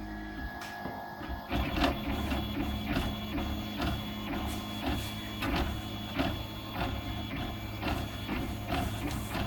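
RoBo 3D printer's stepper motors whirring in short, quickly changing tones with ticks as the print head moves while printing, over a steady hum. The movement gets busier about a second and a half in.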